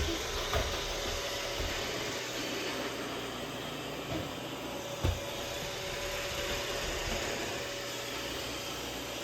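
Roomba robot vacuum running in spot-clean mode: a steady whirring hiss of its suction motor and brushes with a faint steady whine, and two soft low thumps, about half a second in and about five seconds in.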